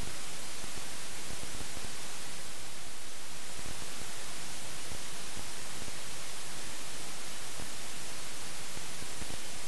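Steady hiss of static from a helmet camera whose audio recording failed; no engine or riding sound comes through.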